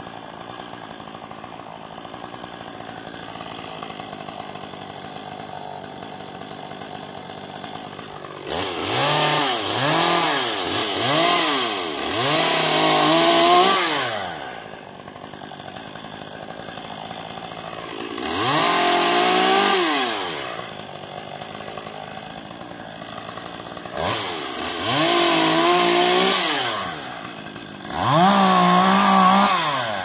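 Chainsaw idling, then revved up in four bursts, its pitch rising and falling with the throttle between stretches of idle, as tree branches are cut.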